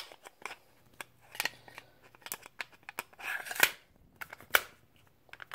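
Handgun slide being worked back onto its frame over the recoil spring: the slide scrapes along the frame rails, with sharp metal and plastic clicks. The loudest click comes a little past three and a half seconds in, right after a short scrape, and another about a second later.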